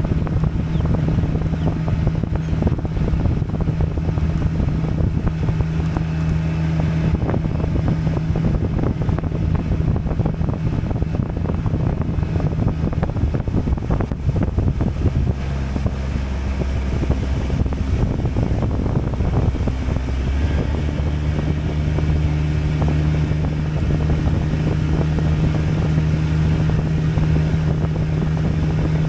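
Small boat's motor running steadily as the boat moves across open water, with wind on the microphone. The engine note changes around the middle and settles back to its earlier tone about twenty seconds in.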